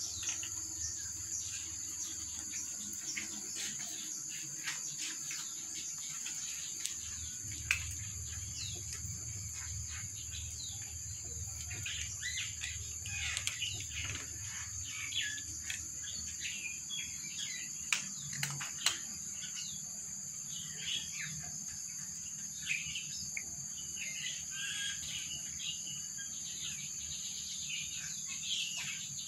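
Outdoor ambience: many short bird chirps over a steady high-pitched insect drone, with scattered sharp clicks.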